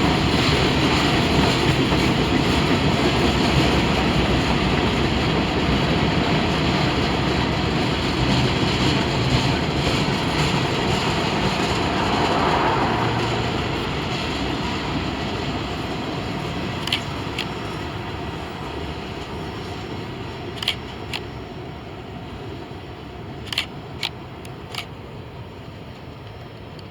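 Freight train rolling by on the rails, a steady rumble and hiss that fades away as the train moves off. A few sharp clicks, mostly in pairs, come through in the second half.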